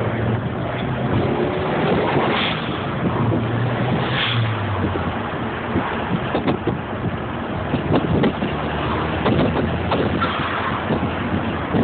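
Car driving, heard from inside the cabin: a steady rush of road and wind noise, with a low engine hum over the first few seconds and scattered light knocks in the second half.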